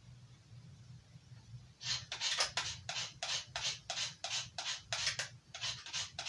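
Knife blade drawn over and over along a gritted handheld sharpener, rasping strokes at about three a second that begin about two seconds in.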